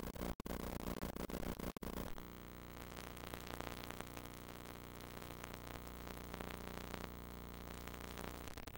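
Videotape playback static: crackling hiss broken by sharp clicks and dropouts for about two seconds, then a fainter steady hiss.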